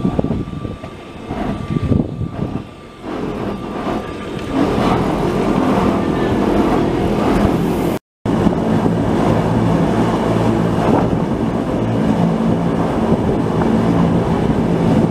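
Electric mountain railway train running, heard from on board: a steady rumble and motor hum. The first few seconds are irregular knocks and gusty noise before the steady running sets in. The sound cuts out for a moment just past the middle.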